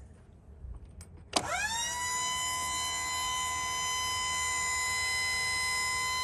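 The hydraulic pump motor on a Wood-Mizer sawmill switches on about a second in, winding up in pitch within a fraction of a second, then running with a steady high whine. It keeps running constantly with the key on, a fault traced to a bad solenoid.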